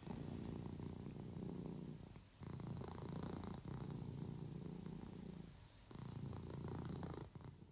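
A cat purring, a low pulsing rumble in three long stretches with brief breaks between them.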